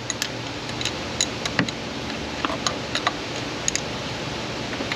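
Hand ratchet clicking in short, irregular strokes as it tightens a sensor's hold-down bolt.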